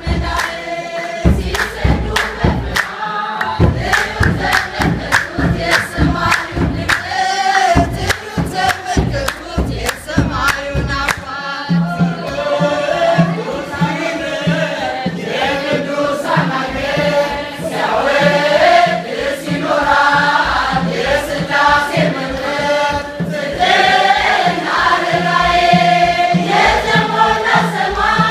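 A congregation sings an Ethiopian Orthodox hymn together, over a steady beat of kebero drums and hand clapping. The deep drum strokes are heaviest in the first ten seconds or so.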